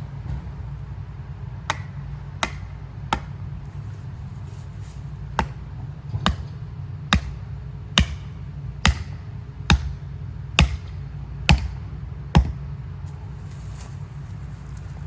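A hammer striking about a dozen times, a few scattered blows and then a steady run of roughly one a second, over a steady low hum.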